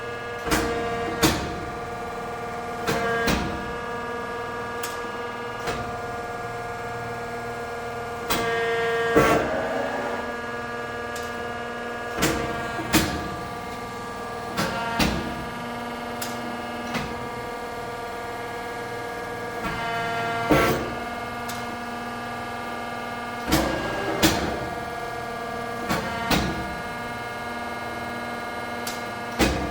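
Pacific Tri-Acro 35-6 CNC press brake running: a steady machine hum, with a sharp clunk or clack every second or two as the ram cycles and the CNC back gauge indexes.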